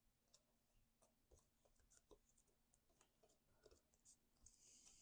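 Near silence with faint, scattered soft clicks and a light rustle near the end: cardstock pieces being handled and pressed together.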